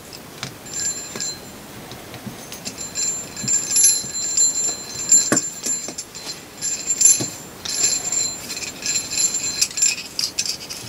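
Metal parts of a turbocharger's core squeaking against each other as the shaft and wheel are twisted loose by hand: a high metallic squeal that rings in repeated stretches, with a few sharp clicks.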